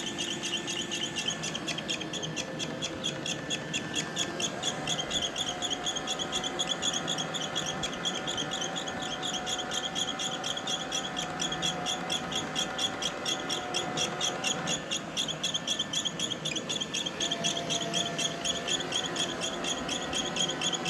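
iRobot robot vacuum running with a rapid, high-pitched squeak repeating about four to five times a second, over the steady hum of its motors.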